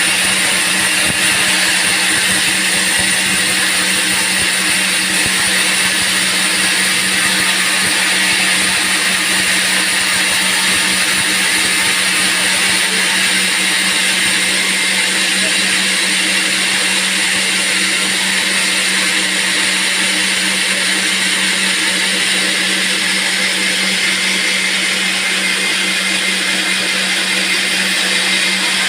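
Band sawmill running steadily while sawing teak: a constant motor hum under a strong, high hiss.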